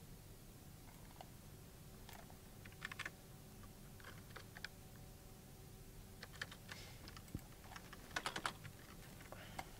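Typing on a computer keyboard: short, scattered bursts of keystrokes, the busiest run about eight seconds in, heard faintly over a low steady hum.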